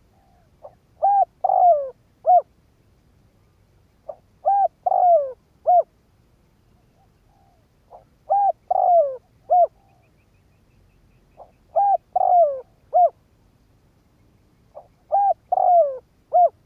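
Spotted dove singing its cooing song: five repeated phrases, each a soft lead-in note and a run of three or four coos, about three and a half seconds apart.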